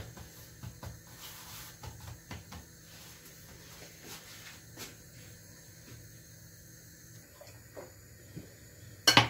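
Faint kitchen handling sounds at a stove: scattered small taps and clicks over a low steady hum, then one sudden loud knock near the end.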